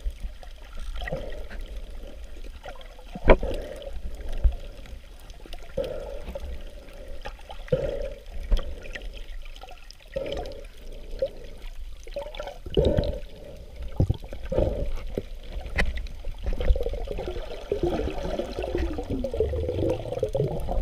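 Seawater sloshing and gurgling around a camera held by a swimming snorkeler, partly underwater, with a muffled surge every second or two and a few sharp knocks. A stretch of bubbling comes near the end.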